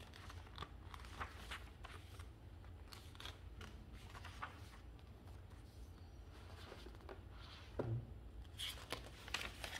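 Faint scattered clicks and rustles over a low steady hum, in a small tiled room, with a brief louder sound about eight seconds in.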